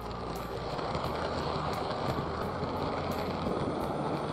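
H0 scale model train running along the track, heard close up from on board: a dense, steady rattling rumble of wheels and mechanism on the rails.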